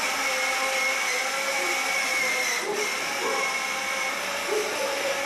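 Toy ride-on quad bike's electronic engine sound playing from its built-in speaker after its button is pressed: a steady buzzing motor noise with a brief break about halfway through.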